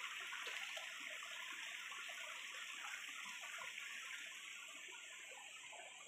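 Steady rushing of a rocky stream and its small cascades, running high with rainy-season water.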